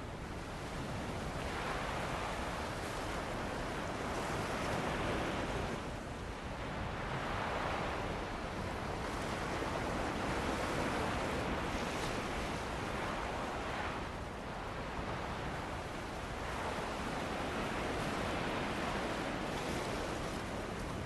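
Surf washing onto a beach in slow swells every three to four seconds, with steady wind.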